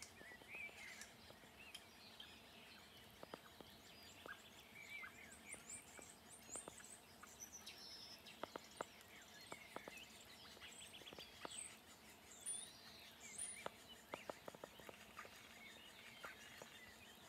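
Faint birdsong: several small birds chirping and trilling, in short rising and falling calls, with scattered soft clicks.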